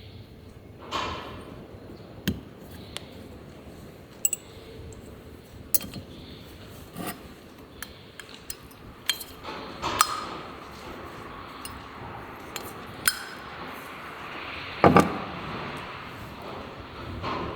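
Hand tools and small metal engine parts clinking and knocking at irregular intervals, the loudest a sharp double knock near the end.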